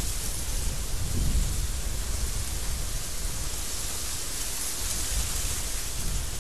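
Strong desert wind blowing in a storm: a steady rushing hiss over a deep low rumble, with a gust swelling about a second in.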